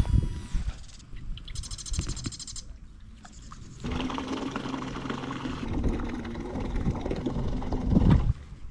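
Knocks and a short high rattle near two seconds in, then from about four seconds a small motor hums steadily with a low tone until shortly before the end.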